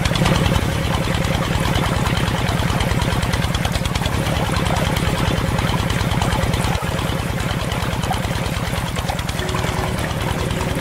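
Small single-cylinder stationary diesel engine running steadily at idle, with a fast, even beat.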